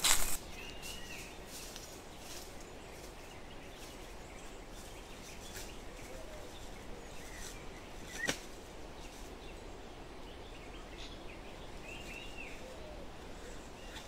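Quiet forest ambience with a bird giving short arching calls, once about a second in and again near the end, and scattered small clicks and rustles. A brief loud rustle cuts off right at the start, and a single sharp click comes about eight seconds in.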